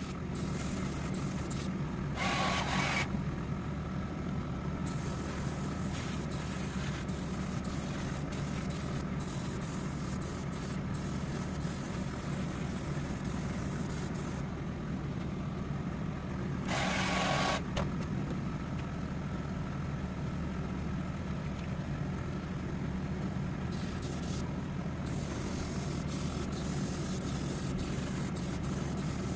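An airbrush hissing on and off over a steady low motor drone. The hiss is strongest in two brief spells, about two seconds in and again around seventeen seconds.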